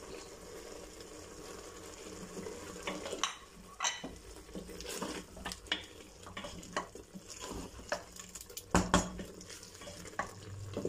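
Wooden spoon stirring keema and potato pieces in a metal pressure cooker, scraping and knocking against the pot's sides, over a steady low sizzle of the simmering mixture. Two louder knocks come near the end.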